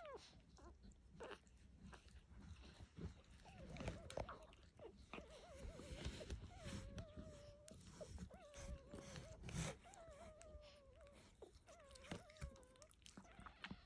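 Newborn puppies suckling at their mother's teats: soft wet smacks and clicks, with a thin wavering whine coming and going through the middle.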